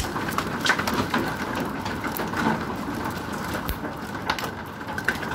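Hail and rain pelting down: a steady hiss of falling rain with scattered sharp ticks of hailstones striking.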